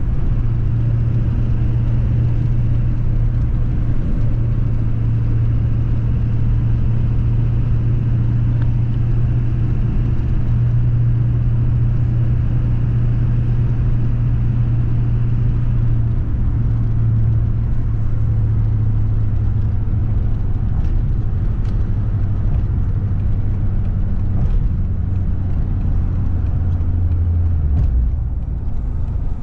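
A motor vehicle running with a steady low drone that eases off near the end.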